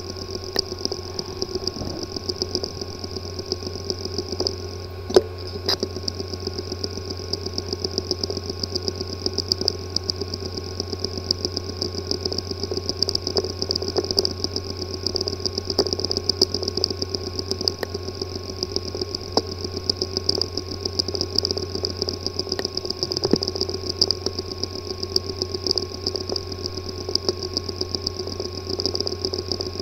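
Hard drive with a physically damaged disk assembly running: a steady buzz with a rapid pulse, broken by scattered sharp clicks, the loudest about five seconds in. This is the clicking, buzzing sound of disk assembly physical damage.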